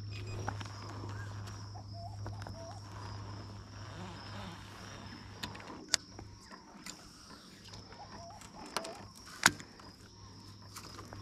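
Low steady hum of a boat's electric trolling motor, which thins out and drops away after about six seconds, under a thin high insect drone. A few sharp clicks or knocks break through, the loudest about six and nine and a half seconds in.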